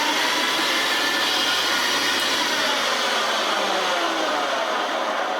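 Vintage Hoover Senior 652a upright vacuum cleaner running steadily and sounding bad. With the brush roll ruled out, the owner's money is on a fault in the fan case bearing.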